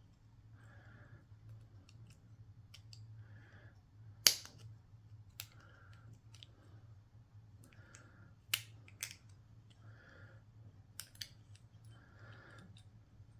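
Scattered sharp clicks and taps of small metal lock-cylinder parts being handled, the loudest about four seconds in, over a low steady hum.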